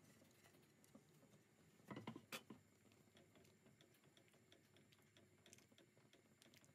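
Near silence: faint patter and ticking from a pot of soup being stirred with a silicone spatula as it simmers. A short cluster of louder clicks comes about two seconds in.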